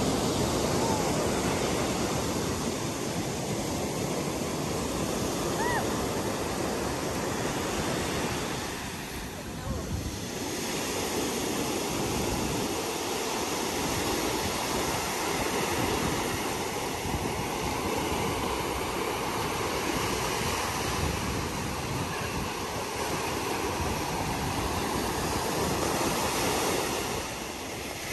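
Sea surf breaking and washing up a sandy beach, a steady rush of waves that dips briefly about nine seconds in.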